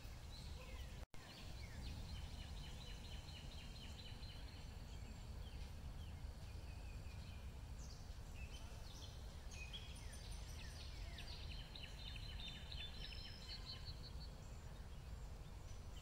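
Songbirds singing and chirping, with short repeated notes and trills, over a low steady rumble of outdoor background noise; the sound cuts out for an instant about a second in.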